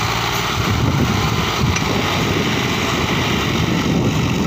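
Two farm tractors' diesel engines running steadily under load, one towing a New Holland Ghazi tractor up out of a muddy ditch.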